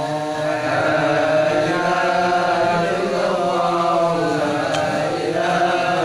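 Group of men chanting Islamic dhikr together in unison, a slow melodic recitation of long held notes that bend gently in pitch.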